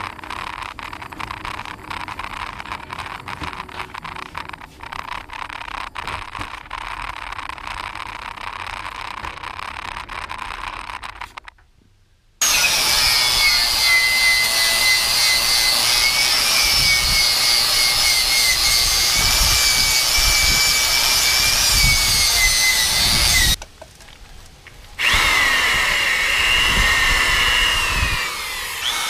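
Power wire-brushing of a tractor's cast transmission case down to bare metal. The first stretch is an uneven scratchy noise full of small clicks. About 12 seconds in, an angle grinder with a wire wheel starts up loud against the casting, its whine wavering as it works. It drops out briefly, then a wire brush on a drill takes over, its pitch falling near the end.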